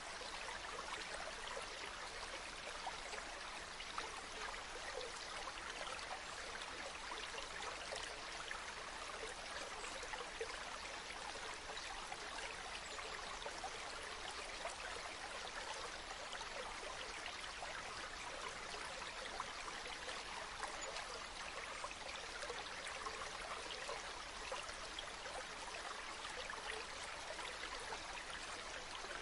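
Mountain river flowing over stones: a steady bubbling, babbling rush of water.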